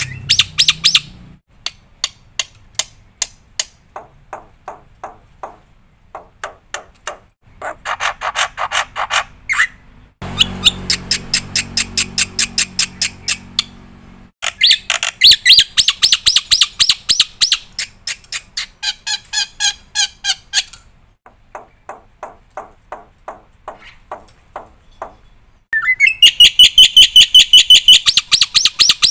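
Black-winged myna (jalak putih) singing a long, varied song: fast trains of short chirps and ticking notes, with loud strings of rapidly repeated ringing notes about halfway through and again near the end.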